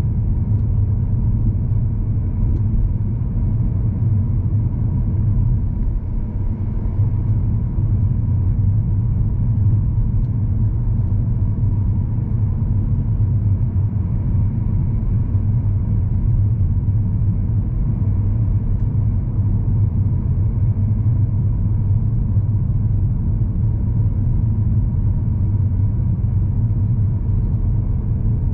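Car engine and tyre rumble heard from inside the cabin while driving: a steady low rumble.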